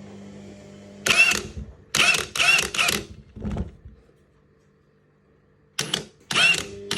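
Ryobi 18-volt brushless high-torque impact wrench run in free air on mode 1, loosening direction, in short trigger blips: about seven brief bursts of the motor spinning up and cutting off, with a quiet pause of under two seconds in the middle.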